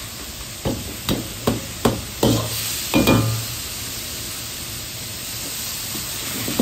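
Sliced pork sizzling in a wok over a gas wok burner, with a metal ladle knocking against the wok about six times in the first three seconds, then a steady sizzle.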